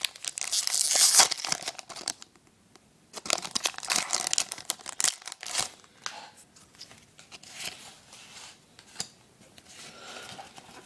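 A foil Pokémon booster pack wrapper being torn open and crinkled by hand, loudest in the first two seconds. After a brief pause there is more crinkling, then softer rustling near the end.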